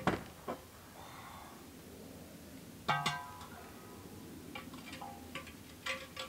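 Sharp knocks and clinks of hard objects, with one louder ringing, pitched clank about three seconds in and a few smaller clinks after it.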